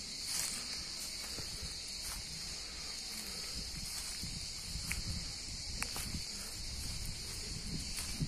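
A steady, high-pitched drone of insects in the trees, unbroken throughout, with irregular soft footsteps on dry leaf litter beneath it.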